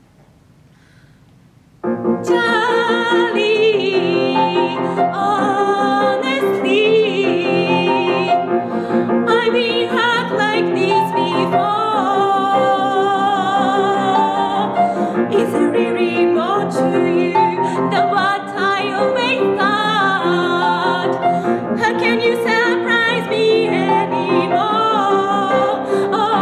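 A woman singing a musical-theatre song solo, accompanied on a grand piano. Voice and piano come in together suddenly about two seconds in, after a quiet pause.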